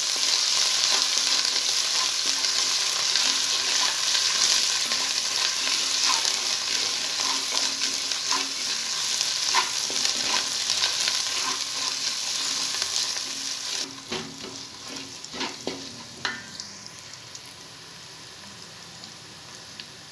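Ginger-garlic paste, onions and green chillies sizzling in hot ghee and oil, stirred with a wooden spatula in an aluminium pot. Around two-thirds of the way through the sizzle drops noticeably, with a few sharp knocks, then carries on more quietly.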